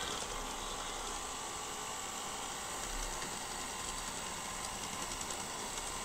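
Xiaomi Roborock robot vacuum running, its motors and gears whirring steadily with a faint rapid ticking as it turns on a hard wooden floor.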